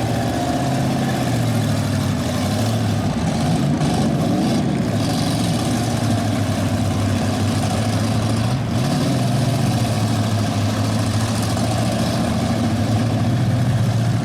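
Engines of several stock demolition derby cars running and revving together in a steady, loud drone.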